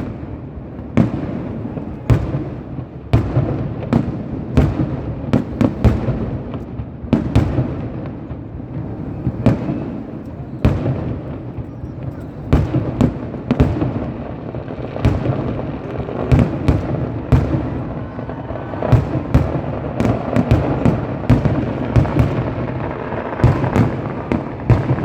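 Fireworks going off in a rapid, irregular barrage of loud bangs, several a second, over a constant rumble of further explosions.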